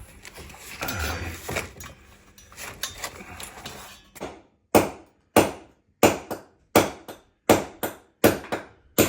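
Faint handling and shuffling noise, then from about four seconds in a steady run of sharp hammer blows, about three every two seconds, each ringing briefly.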